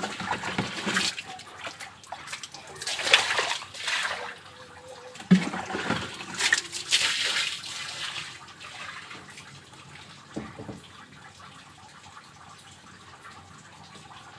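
Water splashing and pouring onto wet concrete in several bursts over the first eight seconds, with a single knock about five seconds in, then only quieter trickling.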